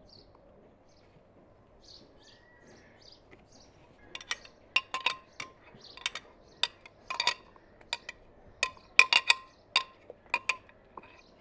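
Glassware clinking: a run of about fifteen sharp, ringing clinks starting about four seconds in, as stemmed glasses are handled and filled from a blender jug. Faint bird chirps before that.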